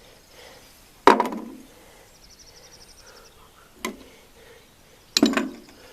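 Metal gearbox parts (sprockets, chain, bearing) being handled: a sharp clack with a short ring about a second in, a lighter tick near four seconds, and another clack about five seconds in. A faint high chirring is heard about two seconds in.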